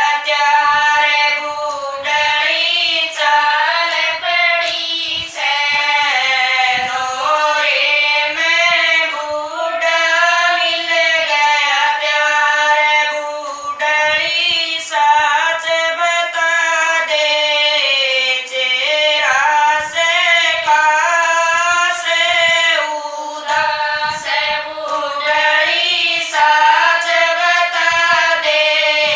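Group of women singing a Haryanvi folk bhajan together, one melody carried line after line with brief breaks between phrases.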